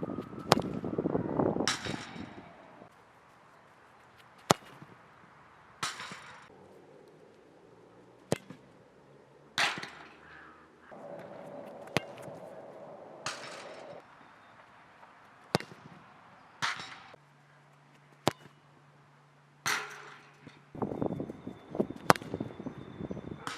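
A football struck hard again and again, each sharp kick followed about a second later by the ball hitting a metal crossbar with a ringing clang, about six times over.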